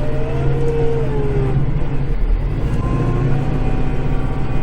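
Kubota tractor's diesel engine running steadily, heard from inside the cab, with a whine that rises and falls in pitch as the machine works.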